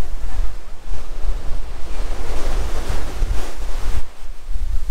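Surf washing onto a sandy beach under heavy wind buffeting on the microphone, a deep gusty rumble. The wash of the surf swells up around the middle and dies back near the end.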